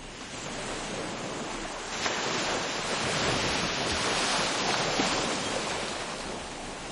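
A steady rushing noise that swells about two seconds in and eases off near the end.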